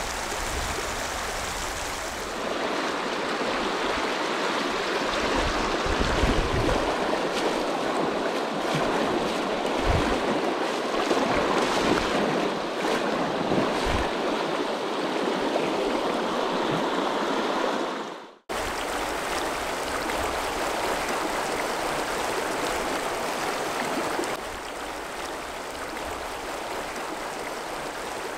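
River water rushing and babbling over shallow rock riffles, a steady rush that drops out for a moment about two-thirds of the way through, then carries on a little quieter.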